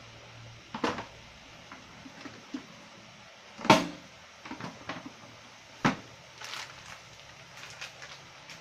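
Chicken pieces and soaked dried oysters dry-frying without oil in an aluminium pot, giving off irregular sharp pops and crackles over a low steady hum. The loudest pop comes about halfway through.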